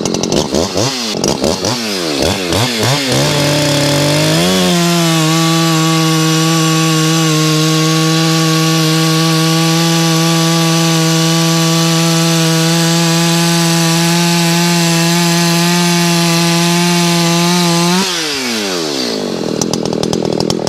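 Two-stroke Echo chainsaw revved up and down a few times, then held at a steady full-throttle pitch for about thirteen seconds while cutting through a log with an unevenly sharpened chain. Near the end it drops back to idle as the cut finishes.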